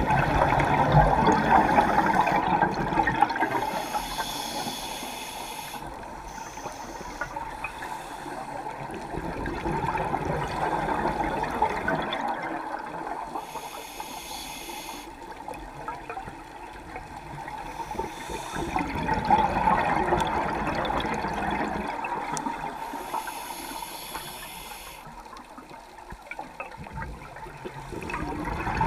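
A scuba diver breathing through a regulator underwater. About every nine seconds an exhalation sends out a rush of bubbles, followed a second or two later by a short hissing inhale through the demand valve.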